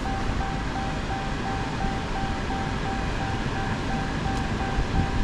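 A steady electronic beep, about two to three beeps a second, over a low rumbling background noise.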